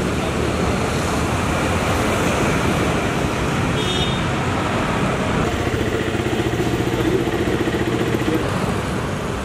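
Road traffic noise, with a short high beep about four seconds in and a motor vehicle engine running close by for a few seconds past the middle.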